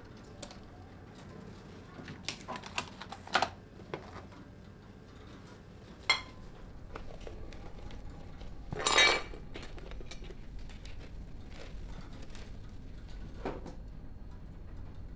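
Crockery and cutlery clattering on a kitchen counter, then a sharp crash about six seconds in as red crockery breaks on a wooden floor, followed by a louder, longer crash about three seconds later.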